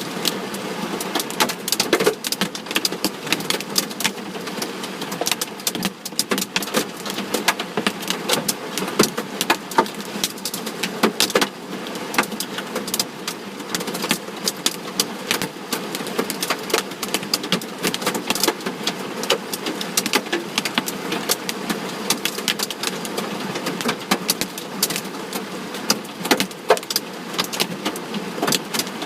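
Hail striking a vehicle's body: a dense, irregular patter of sharp ticks and knocks over a steady hiss, with occasional louder hits.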